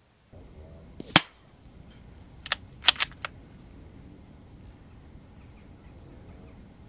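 A single sharp shot about a second in from a suppressed .22 LR rimfire rifle, with the hit on a hanging steel plate target. About a second and a half later comes a quick run of four lighter metallic clicks, typical of the plate and its chains knocking as it swings.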